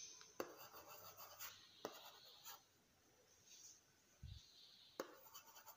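Stylus scribbling on the screen of an Amazon Basics LCD writing tablet: faint scratchy strokes that come and go, with three sharp taps.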